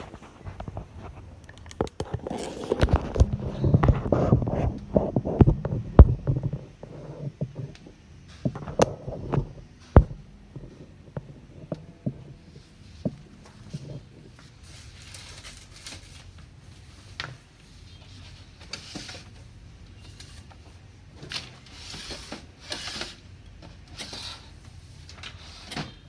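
Handling noise from the HP laser printer being grabbed and moved: a stretch of rattling and clatter, two sharp knocks about six and ten seconds in, then scattered light clicks.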